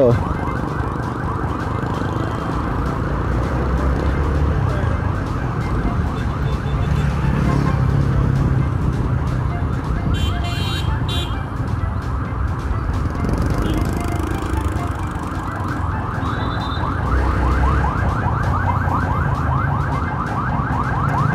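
Ambulance siren in a fast yelp, rapidly repeated rising sweeps, heard over the motorcycle's running engine and street traffic.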